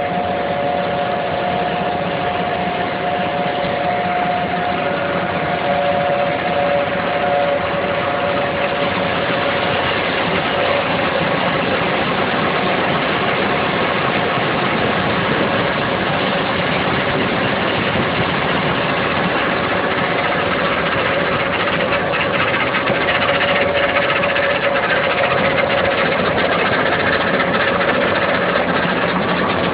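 Mixing plant machinery running steadily: a dense mechanical din with a steady whine in it.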